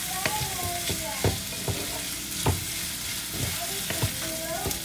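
Sliced onion and red capsicum sizzling in oil in a metal wok while a wooden spatula stirs them, scraping across the pan and knocking against it several times.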